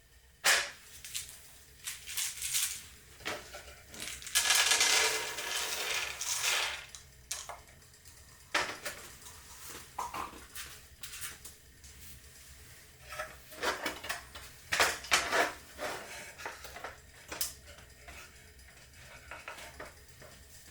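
A series of sharp clinks and knocks of objects being handled, with a longer rustling, scraping stretch about four seconds in.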